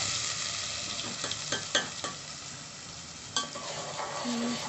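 Hot oil sizzling in a steel pan as wet ground masala paste goes in over fried onions. The sizzle is loudest at first and eases off after about a second and a half. A few sharp metal clinks against the pan come as the paste is scraped in and stirred.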